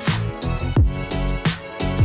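Music with a steady beat: deep kick drums that drop in pitch and crisp hi-hat ticks over held chords.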